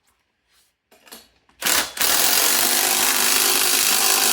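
Impact wrench tightening a nut: a short burst about a second and a half in, then a continuous hammering run from about two seconds in.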